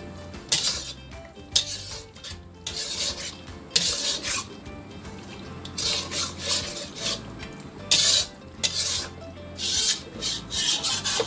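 A metal spatula stirring and scraping thick mutton curry around a black karahi (wok), in irregular rasping strokes.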